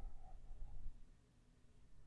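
The tail of a man's long, tired exhale close to the microphone, fading out within the first second, then near quiet with only a faint low hum.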